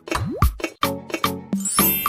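Background music with a steady, punchy beat, a rising swoosh early on and a cymbal crash near the end.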